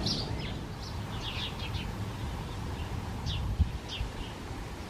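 Small birds chirping on and off in short, high, quick notes over a low background rumble, with a brief low knock about three and a half seconds in.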